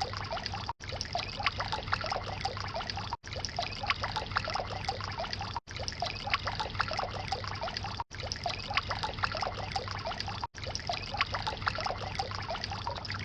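Water trickling and splashing steadily from a concrete garden water feature, the sound cutting out briefly about every two and a half seconds.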